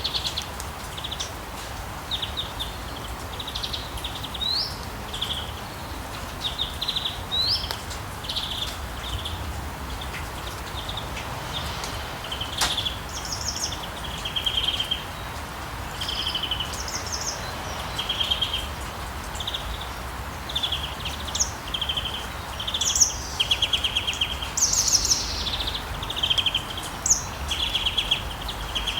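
Steady rain falling on a street, with birds chirping and singing in many short calls and trills throughout. One sharp click about halfway through.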